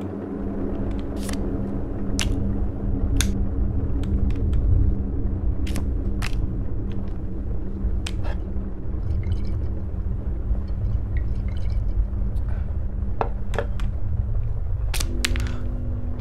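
Low, steady rumbling drone with a few held hum tones, the sound-design bed of a horror film, with sharp clicks scattered through it about once a second. The hum tones shift near the end.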